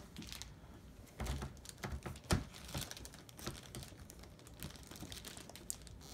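CGC hard plastic comic slabs being handled and shuffled in a stack: irregular light clicks and taps, with one sharper knock a little over two seconds in.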